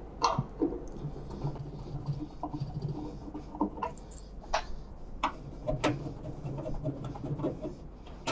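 Screws being taken out of a microwave oven's sheet-metal outer cover: scattered small clicks, taps and scratches of the screwdriver on the screw heads and metal, with a faint low hum in stretches.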